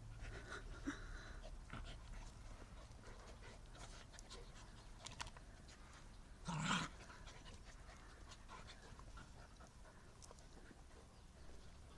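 Dogs play-fighting on grass: quiet scuffling and panting, with one short, louder sound a little past halfway.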